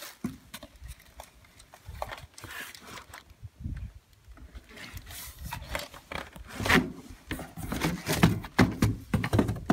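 Plastic wrapping rustling and crinkling while a brush cutter's engine unit is lifted from its box and handled, with scattered knocks and taps of the plastic housing. The rustling and handling noises grow busier and louder in the second half.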